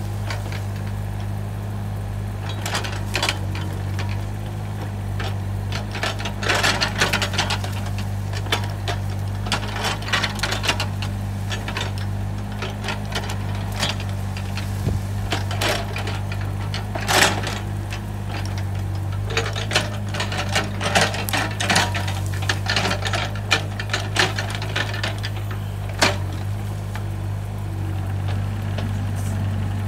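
Takeuchi TB135 mini excavator's diesel engine running steadily, with bursts of knocks, cracks and clatter as the bucket digs into and pulls at a stump and its roots; the sharpest crack comes about seventeen seconds in.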